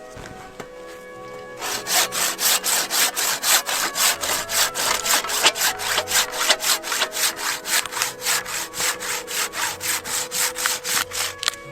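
Hand saw cutting through wood in quick, even back-and-forth strokes, about four a second. It starts about two seconds in and stops just before the end.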